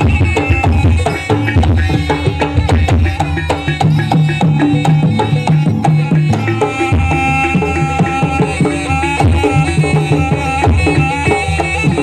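Live Javanese gamelan accompaniment for a barong dance, led by busy hand-drum strokes under several held melodic lines.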